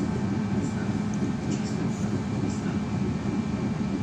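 Cabin noise of a BKM 321 trolleybus under way: a steady drone from its electric drive and tyres on the road, with a low hum and a few faint high chirps.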